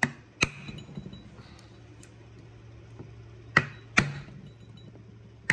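Hammer blows on a wood block set against the steel speedometer tone ring of a differential carrier, knocking the ring off the carrier: sharp strikes in pairs, about five in all, some followed by a light metallic ring.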